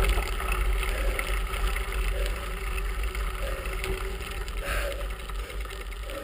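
Bicycle riding over a gravel road, heard from a handlebar-mounted camera: a steady low rumble of tyres and wind on the microphone that gradually eases off as the bike slows.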